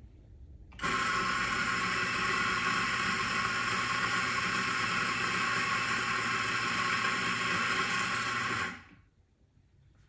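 Eureka Mignon Specialita flat-burr espresso grinder grinding coffee beans on its timer: a steady motor whine over the hiss of the beans being ground. It starts about a second in and cuts off sharply near the end.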